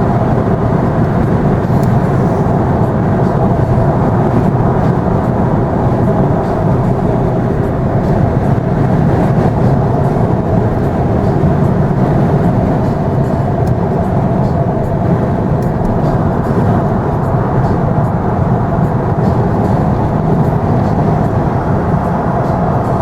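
Steady road and engine noise of a car driving, heard from inside the cabin, with a constant low hum and no change in speed.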